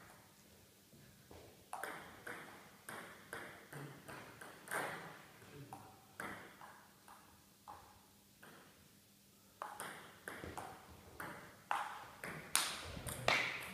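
Table tennis ball clicking off the rubber bats and the table in a rally, a few hits a second. After a pause of about two seconds midway, a second exchange starts, with the loudest hits near the end.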